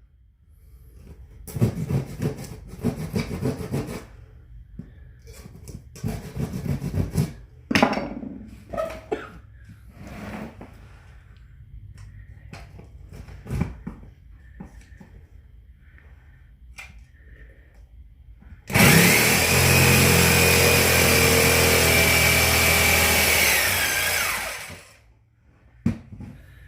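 Carpentry work: two runs of rapid rasping strokes and scattered knocks, then an electric power tool runs at steady speed for about six seconds near the end and winds down, its whine falling as it stops.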